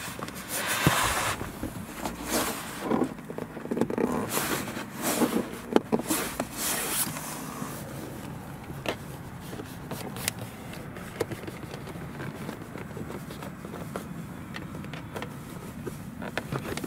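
Hands pressing a thin cable into the gaps of plastic car interior trim with a plastic pry tool: irregular rubbing and scraping with small clicks of plastic, busiest in the first several seconds and sparser afterwards.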